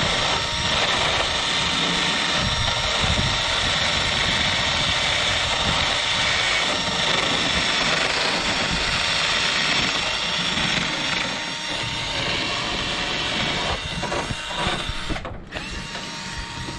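Power tool running steadily, then cutting in and out near the end.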